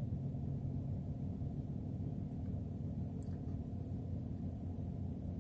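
Steady low rumble of a car heard from inside the cabin, engine and road noise, with a faint click about three seconds in.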